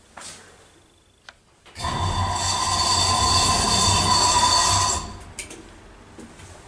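Thyssen hydraulic elevator's automatic doors opening on arrival: a loud, steady metallic whine and rush that starts abruptly about two seconds in and stops about three seconds later. Two faint clicks come before it.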